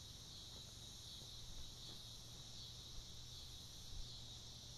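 A steady, high-pitched chorus of insects, such as crickets, chirring without a break.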